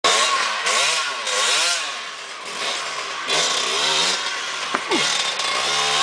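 Dirt bike engine revving up and dropping back again and again in short blips as the bike climbs over river boulders. A sharp knock about three-quarters of the way in.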